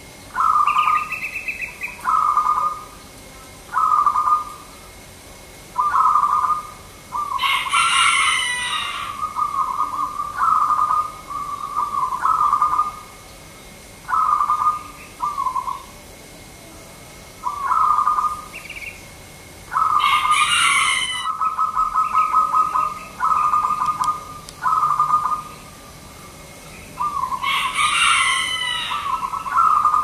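Zebra dove (perkutut) cooing: short, rattling coo phrases repeated about every two seconds, sometimes running into longer strings. Three times a louder, harsher call from another bird cuts across.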